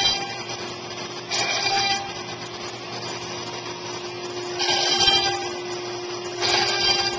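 CNC wood router cutting 19 mm veneered board, its spindle running with a steady hum. Four louder stretches of high-pitched whine, each under a second long, come and go at uneven intervals.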